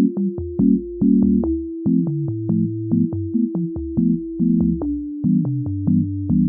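Background music: a light synthesizer tune with short keyboard chords over a held bass tone and a crisp beat of about two ticks a second.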